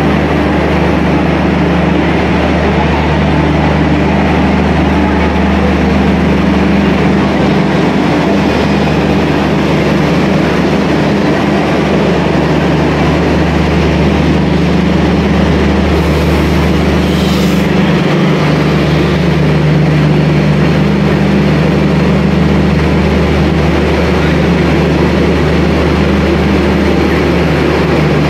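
Loud, steady machinery drone of an express train standing at the platform, from its electric locomotive and its power-and-generator car, with a brief hiss about 16 seconds in.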